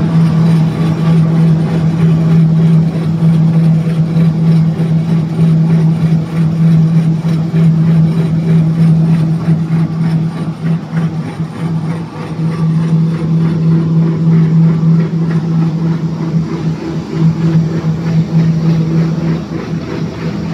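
Double-knife-roll Dutch beater for paper pulp running: a loud, steady machine hum from its electric motors and knife rolls, over the wash of pulp slurry churning round the trough.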